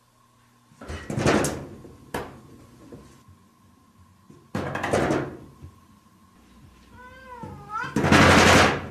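A wood-and-paper shoji sliding door rattles and knocks three times as a cat paws and jumps at it. The bangs come about a second in, near the middle and near the end. A cat meows once with a wavering pitch just before the last, loudest bang.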